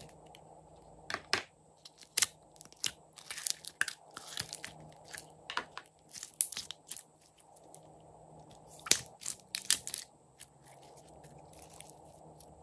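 Glittery blue slime being stretched, pressed and folded by hand, giving irregular sticky pops and crackles, with fewer of them near the end.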